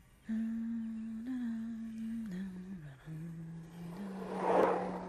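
A person humming a slow wordless tune in long held notes, the pitch dipping lower around the middle and rising back up about four seconds in. A brief rush of noise comes near the end.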